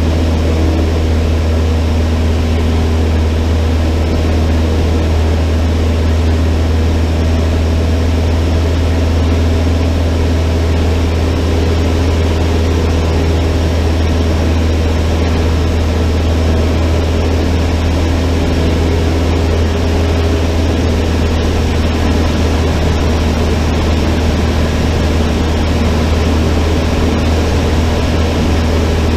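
Cessna 152's four-cylinder Lycoming engine and propeller running steadily, a loud, even drone with a strong low hum and no change in pitch.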